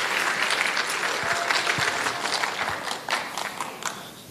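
Audience applauding in a theatre, the clapping dying away over the last second or so.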